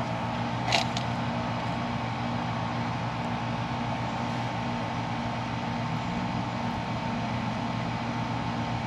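Steady machine hum with a low drone and a higher held tone, and one short click just under a second in.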